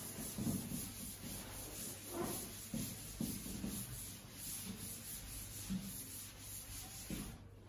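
Faint handwriting: irregular short scratching and rubbing strokes of writing, over a steady low hum, stopping shortly before the end.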